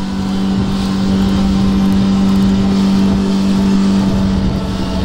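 Outboard motor on a 22-foot bay boat running hard at a high, steady rpm, its note holding even while the boat is underway at speed.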